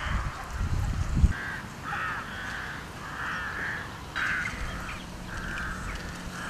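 Crows cawing repeatedly, a dozen or so short harsh calls. A gust of wind buffets the microphone in the first second or so.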